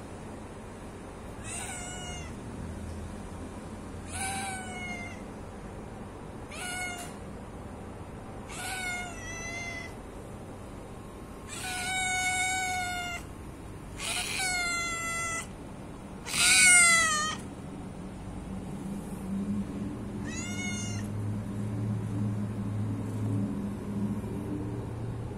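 A young white-and-orange cat meowing again and again, about eight separate calls of a second or so each, the one about two-thirds of the way through the loudest: a hungry cat begging for food. A low steady rumble comes up in the background near the end.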